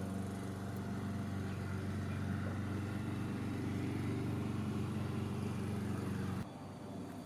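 A car engine idling steadily with an even low hum. About six seconds in it cuts abruptly to a quieter hum.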